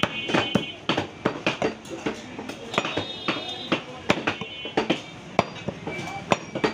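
Irregular sharp chops of cleavers striking wooden chopping blocks, two or three a second. A thin high ringing tone comes and goes over them, and a voice is faintly heard.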